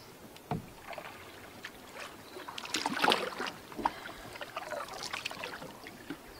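Canoe paddle strokes in calm lake water: splashes from the blade, the loudest about three seconds in and another about five seconds in, with trickling drips and a few light knocks.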